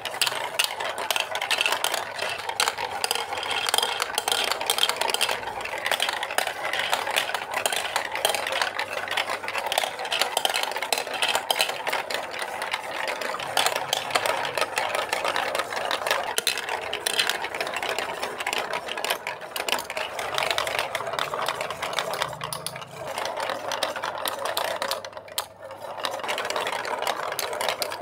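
Plastic marbles rolling and rattling through a Lego Duplo marble run's plastic funnels and chutes: a dense, continuous clatter of small clicks, with a brief lull near the end.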